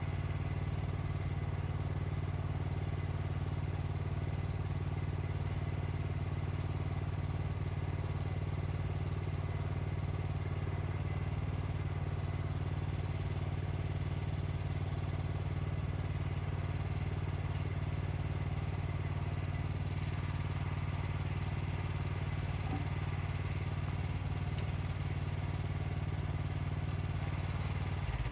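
Wood-Mizer LX55 portable sawmill's 14 hp engine running at a steady speed, shut off at the very end and dying away.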